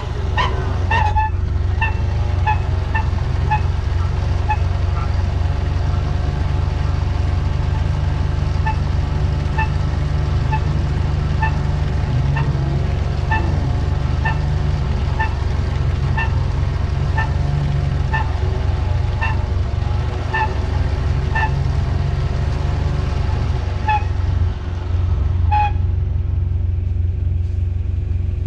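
Toyota truck engine running steadily while driving a trail, with a string of short, ringing squeaks or ticks from the truck about once or twice a second that stop near the end.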